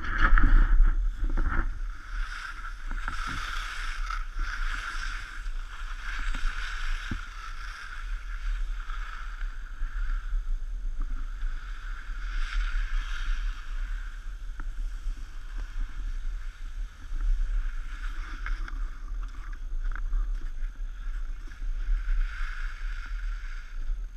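Skis sliding and scraping over packed snow, a steady swishing hiss that swells and fades, with wind rumbling on the microphone.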